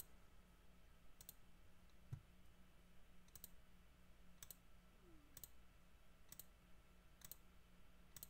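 Faint computer mouse clicks, about one a second, from clicking through rounds of an on-screen randomizer, over a low steady hum.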